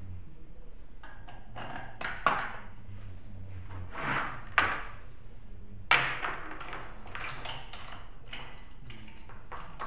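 Metal saw chain clinking and rattling as it is picked up off a workbench and fitted over a chainsaw's bar and sprocket, with a few sharper knocks of metal on metal. The loudest knock comes about six seconds in, followed by a run of small quick clicks from the chain links.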